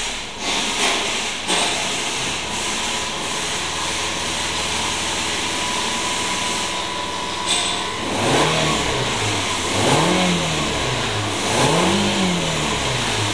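2004 Subaru Liberty's 2.5-litre flat-four engine running steadily, then revved three times in the last five seconds, each time climbing to about 5,000 rpm and falling back.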